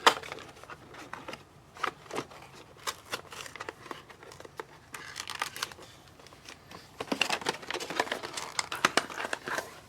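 Foil trading-card pack wrappers crinkling and tearing as packs are opened and the cards handled, with scattered sharp clicks and a busier stretch of crinkling near the end.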